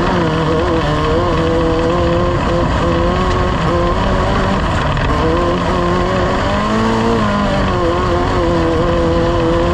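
Off-road race vehicle's engine running at fairly steady revs, its pitch wavering slightly and shifting briefly about seven seconds in.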